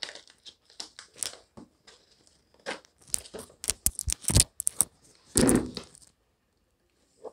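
Scissors snipping and slitting plastic packing tape on a cardboard box, with the tape crackling and tearing. The sharp snips and crackles come thickest from about three to five seconds in, followed by one longer tearing sound at about five and a half seconds.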